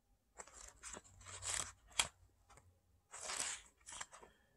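Pages of a paperback manga volume being flipped through by hand: a run of short papery rustles and swishes in two bouts, with one sharp flick of a page about two seconds in.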